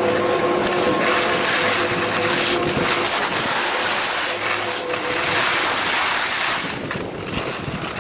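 Wind rushing over a hand-held camcorder's microphone and skis hissing over packed snow on a downhill run. The hiss is strongest through the middle and eases about seven seconds in.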